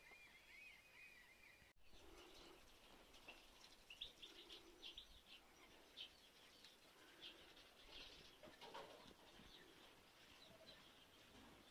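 Faint birdsong: a small songbird warbles for about the first two seconds. After a sudden change, scattered short chirps and soft low hen calls from a small flock of chickens take over.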